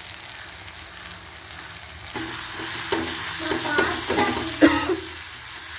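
Tomato masala sizzling as it fries in oil in an iron kadai. From about two seconds in, a steel spoon stirs and scrapes the pan in a run of short strokes, some of them squeaky.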